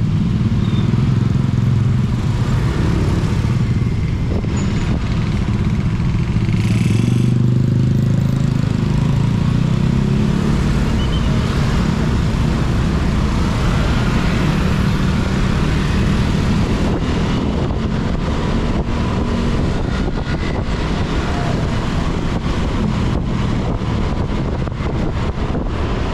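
Motorcycle engine running at low speed in dense traffic, mixed with the hum of surrounding scooters and cars. Wind buffets the microphone in the last third.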